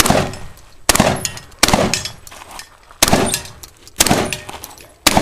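Shotgun fired six times at uneven intervals, each blast trailing off in a short echo.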